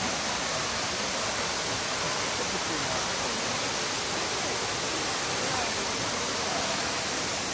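Steady, even rush of water from the river and waterfall.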